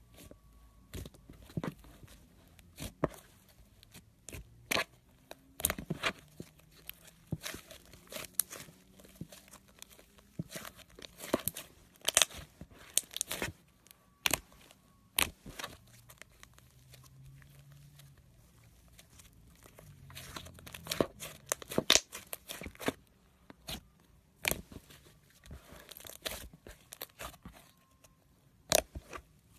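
Slime being squished and pulled by hand, giving off irregular sharp crackles and pops, some in quick clusters.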